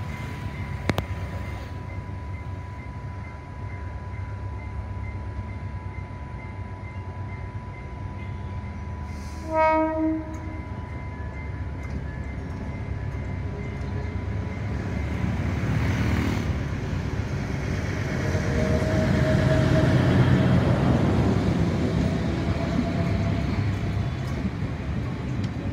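Sri Lanka Railways Class S11 diesel multiple unit approaching and passing: a short horn blast about ten seconds in, then the engine and wheels on the rails building to a loud rumble as the power car and carriages go by, loudest about twenty seconds in.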